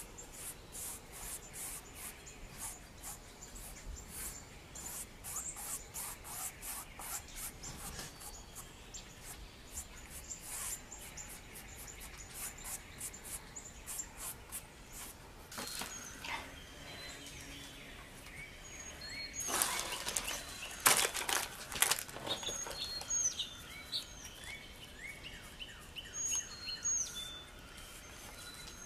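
Stiff bristle brush dabbing and scrubbing acrylic paint onto a painting board, a quick run of short scratchy strokes, with a few louder scrapes about twenty seconds in. Small birds chirp in the background near the end.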